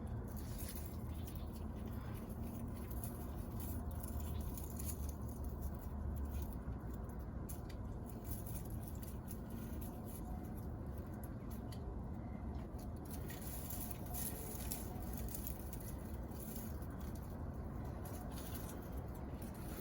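Leaves and stems of garden plants rustling, with scattered small crackles and ticks as produce is handled and picked, over a low steady rumble.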